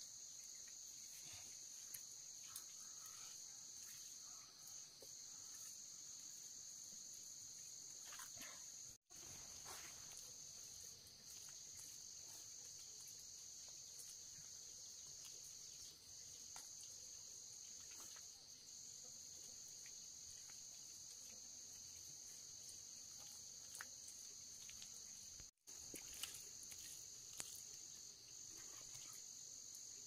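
Faint, steady chorus of insects, a continuous high-pitched chirring, with a few light clicks. The sound cuts out completely for a moment twice, about nine seconds in and again about twenty-five seconds in.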